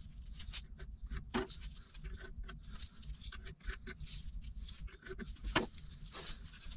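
Quiet handling sounds of gloved hands at work: scattered rustles and light clicks, with a sharper tap about a second and a half in and another at about five and a half seconds.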